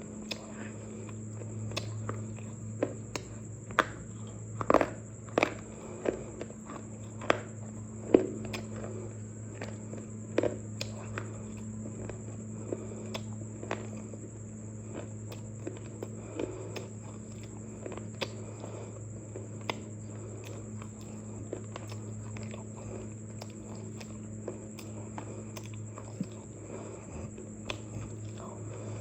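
Irregular sharp crunches and snaps, as of something brittle being bitten and chewed, loudest and most frequent in the first ten seconds and sparser after. A steady low hum runs behind them.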